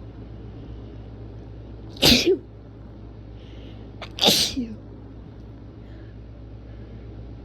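A person sneezing twice, strongly, about two seconds apart.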